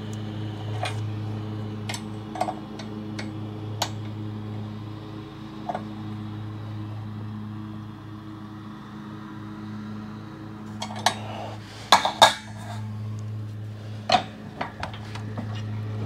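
Steel winding bars and a wrench clinking against a garage door torsion spring's winding cone and shaft as the cone is tightened down. There are scattered sharp metal clinks, with a burst of louder clanks about eleven to twelve seconds in, over a steady low hum.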